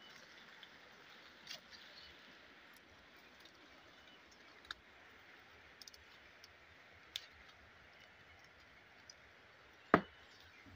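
Quiet forest background with a faint steady hiss, scattered small sharp clicks, and one much louder sharp knock about ten seconds in.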